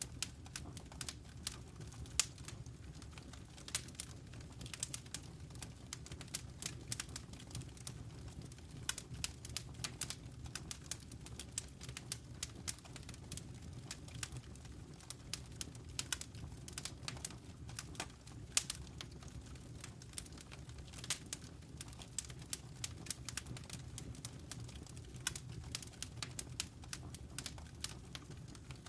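Wood fire crackling: irregular sharp pops and snaps, many a second, over a steady low rumble of burning flames.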